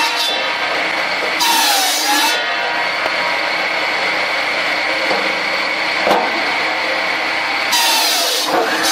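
Large homemade firewood circle saw running steadily, its blade cutting through a log twice: about a second and a half in and again near the end. Each cut brings a loud rasping burst while the blade's whine dips in pitch as it bites in and recovers.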